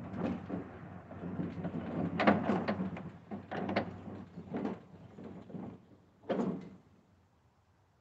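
Gas-engine bandsaw mill running, its blade cutting through a large red oak log, with the noise coming in uneven surges over a steady low hum. It drops away sharply just before the end.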